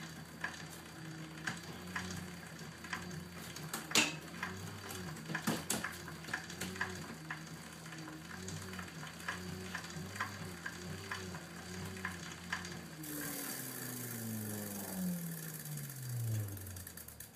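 Pedal-driven generator made from a Fisher & Paykel Smart Drive washing-machine motor, running with a hum that swells and eases in a regular rhythm with the pedal strokes, while the bike chain and derailleur tick over the sprockets. About thirteen seconds in, the hum falls steadily in pitch as the generator and flywheel spin down.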